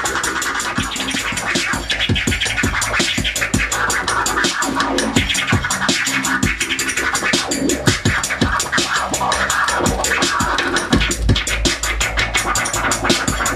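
Turntable scratching: vinyl records pushed back and forth by hand, with fast choppy cuts and sweeping pitch glides up and down, over a hip hop beat.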